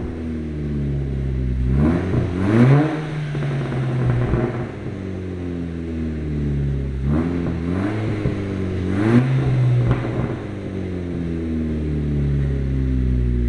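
SEAT Leon Cupra's 2.0 TFSI turbocharged four-cylinder, heard through an aftermarket 76 mm exhaust, idling and being blipped. There are two quick revs about two seconds in and three more at around seven to nine seconds, each dropping back to idle.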